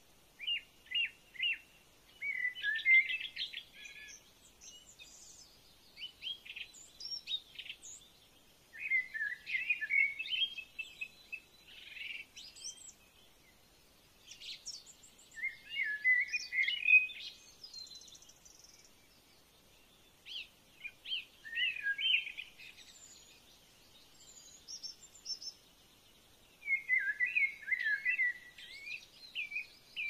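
Songbirds singing: a bird repeats a short warbling song phrase about every five or six seconds, with fainter, higher chirps from other birds between phrases.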